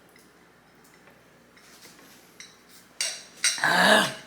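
Close-miked eating noise. Faint light clicks at first, then about three seconds in a loud burst of mouth and food-handling noise lasting about a second.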